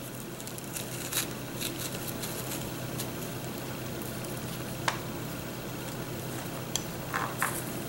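Metal melon baller scraping the seedy pulp out of a halved zucchini: faint soft scrapes with a few light clicks, over a steady low hum and hiss.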